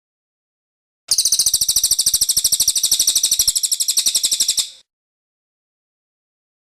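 Cililin songbird giving one long, very rapid trill of high, evenly repeated notes, about a dozen a second. It starts about a second in and cuts off abruptly after nearly four seconds.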